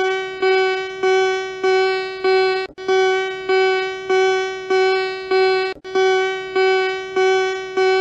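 Electronic alert attention tone: one steady pitched note sounded about twice a second in runs of five, with a short break between runs, each note fading slightly before the next.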